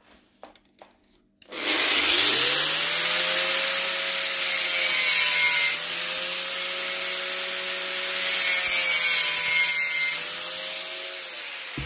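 High-speed power tool cutting a bolt down to length: the motor spins up about a second and a half in, runs steadily with a harsh gritty cutting noise, dips slightly in pitch now and then under load, and starts to wind down at the very end. A few light handling clicks come before it starts.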